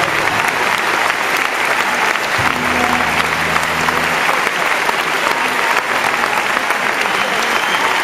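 Concert audience applauding steadily. About two and a half seconds in, a low instrument note from the stage rings out for a couple of seconds.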